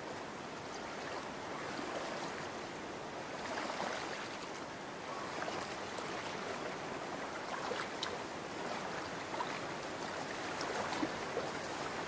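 Shallow water of a salmon stream flowing and splashing steadily, with a few faint brief splashes.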